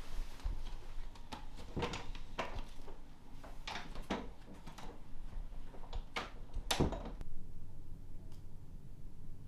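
A series of irregular knocks and thuds, about eight in all, the loudest near the end, stopping about seven seconds in.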